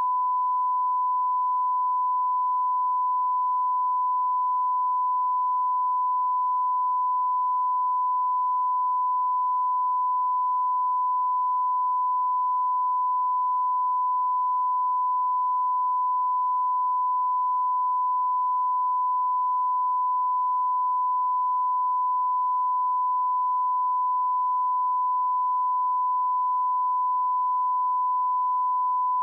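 A steady, unbroken 1001 Hz sine-wave test tone: a single pure pitch held at constant level.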